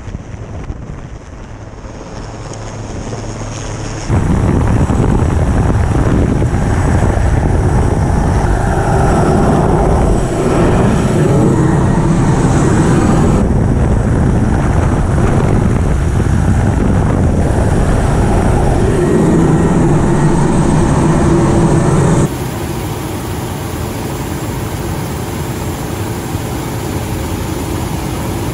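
Steady rotor and engine noise of a rescue helicopter hovering over a ship, heard from its open cabin door. The noise jumps sharply louder about four seconds in, then drops to a lower level a few seconds before the end.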